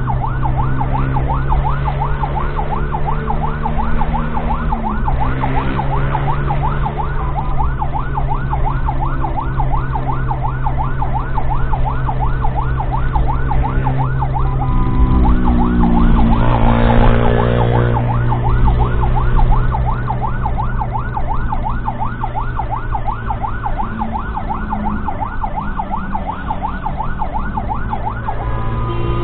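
Ambulance siren on a fast yelp, several rising-and-falling sweeps a second, over the steady drone of the ambulance's engine. A little past halfway the yelp breaks off for a couple of seconds into a louder, falling tone, then starts again.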